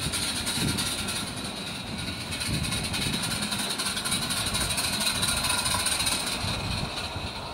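Live-steam 16mm-scale model of the W&L locomotive Countess running past with its train: a steady hiss of steam over the uneven rumble of the wheels on the track.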